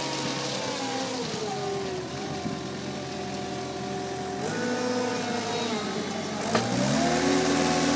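Cat skid-steer loader's diesel engine working under changing load. Its pitch drops about a second in, steps up midway, then dips and climbs sharply near the end, with one sharp knock just before the climb.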